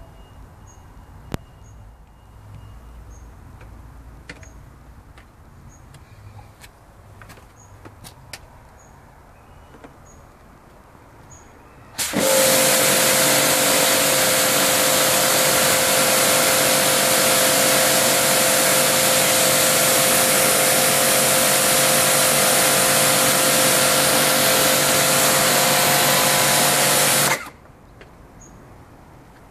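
Kärcher K5.55M electric pressure washer starting suddenly about twelve seconds in and running for about fifteen seconds: a loud spray hiss over a steady motor-and-pump hum. It cuts off abruptly near the end. Before it starts there is only quiet background with a few faint clicks.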